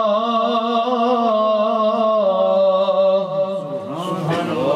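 A man's voice reciting the Quran in melodic tajweed style, holding a long, wavering ornamented note on the end of 'rasul Allah' until about three and a half seconds in. Other men's voices follow briefly near the end.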